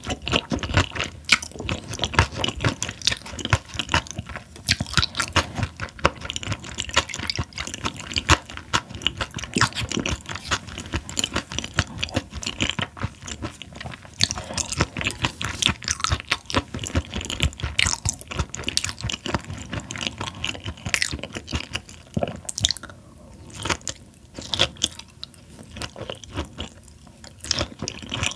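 Close-miked chewing of raw Chinese herring sashimi and its seasoned vegetable salad: a dense, irregular run of crisp clicks and crunches, thinning out for a few seconds near the end.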